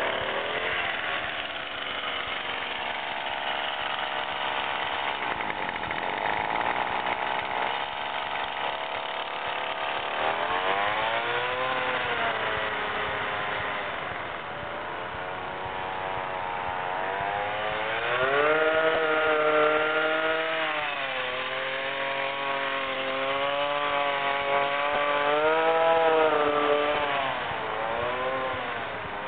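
Motor of a scratch-built 1:8 scale RC Mack CH truck running, its pitch rising and falling again and again as the throttle is worked. It is loudest and wavers most in the second half.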